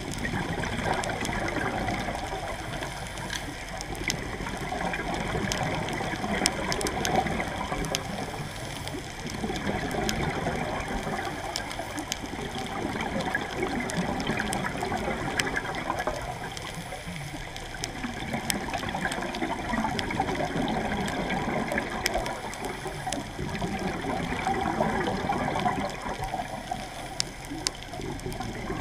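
Underwater rush and gurgle of a scuba diver's exhaled bubbles, swelling and fading every few seconds with the breathing, with scattered sharp clicks from the reef.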